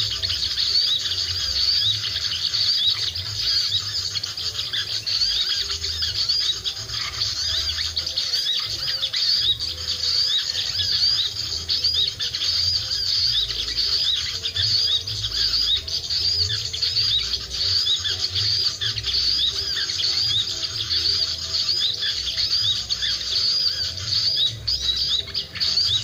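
Small birds twittering: a dense, unbroken stream of quick high chirps, with wind rumbling low on the microphone.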